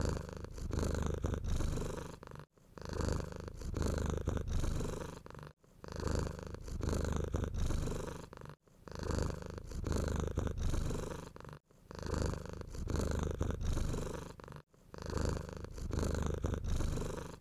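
Cat purring in a low, steady rhythm that swells and ebbs with each breath, cut by brief silences about every three seconds.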